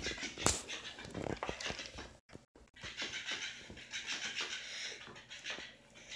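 A pocket beagle puppy panting and sniffing as it noses and mouths a toy fish on a hardwood floor, with a run of light taps and scrapes in the first two seconds.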